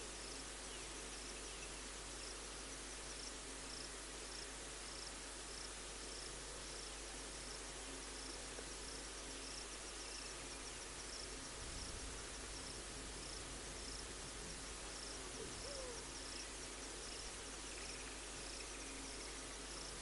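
Bush ambience: an insect chirping steadily at about two chirps a second over a low hiss, with a few faint bird calls in the distance.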